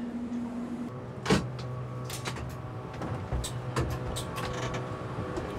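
Inside an electric locomotive's driving cab: a steady electrical hum, with a series of sharp clicks and knocks as the controls are worked, the loudest knock just after a second in.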